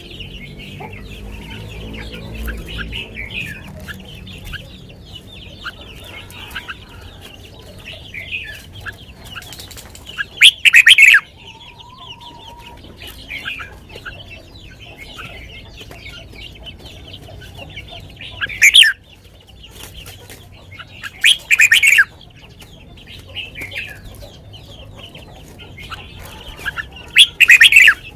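Red-whiskered bulbul singing in bright, chirpy phrases. Four very loud bursts of song stand out, about ten seconds in, near the middle, shortly after, and near the end.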